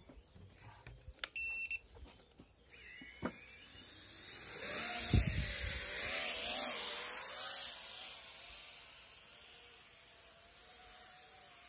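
A short electronic beep about a second in, then a small FPV quadcopter's motors spin up into a buzzing whine whose pitch rises and wavers with the throttle. It is loudest about five to seven seconds in, then fades as the drone flies away.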